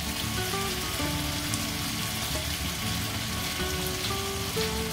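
Diced potatoes frying in oil in a kadhai on low flame: a steady, even sizzle, under soft background music with held notes.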